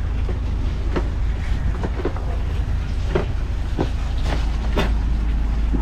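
A steady low engine rumble with irregular knocks and clunks on top, roughly one every half second to a second.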